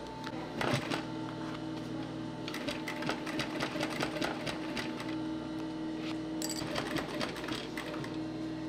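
Sewing machine running and stitching: a steady motor hum under a fast run of needle clicks, busiest about a third of the way in and again near the end.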